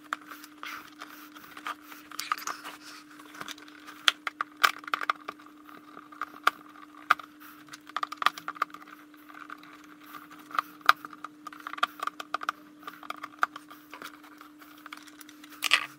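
Small clicks, taps and scrapes of a screwdriver and wires being worked into the screw terminals of a small relay module inside a wooden box, over a steady low hum.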